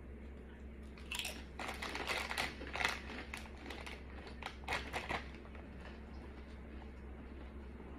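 Mouth crunching through a crisp tortilla chip: a run of crackly crunches from about one second in until about five seconds in, loudest near the middle.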